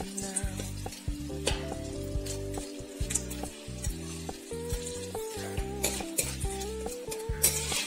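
Kondattam (sun-dried chillies) frying in hot oil in a steel kadai, sizzling, with a spoon stirring and scraping against the pan now and then.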